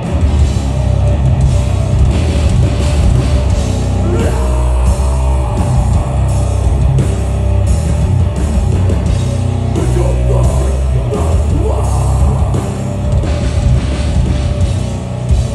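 Death metal band playing live through a stage PA: heavily distorted electric guitars and bass over a drum kit, with cymbals struck at a steady beat of about two a second.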